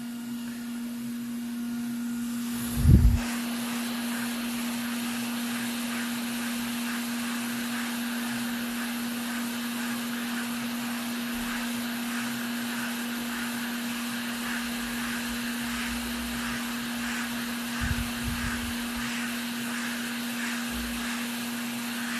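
A small electric fan or blower running steadily with a whooshing whir over a steady hum, starting with a thump about three seconds in; another soft thump comes near the end.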